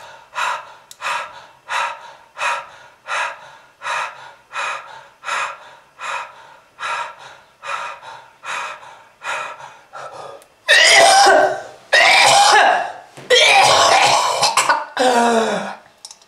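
A smoker's cough: a long run of short, evenly spaced hacking coughs, about one and a half a second. About ten seconds in come four much louder, longer harsh coughing fits, the last ending in a voice that falls in pitch.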